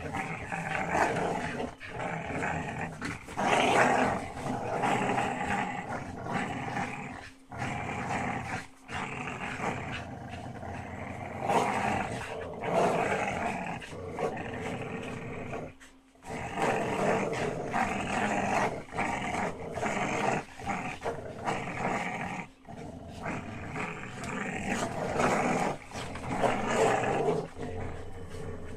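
Several dogs growling almost without a break while tugging together on a rope toy: play growling in a three-way game of tug-of-war. The growling stops briefly about halfway through, then picks up again.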